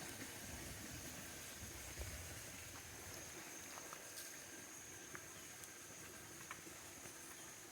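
Faint, steady high-pitched insect drone, with a few soft scattered clicks.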